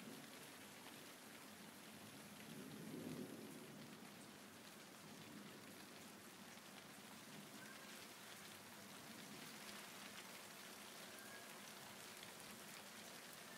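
Faint, steady hiss of rain falling during a thunderstorm.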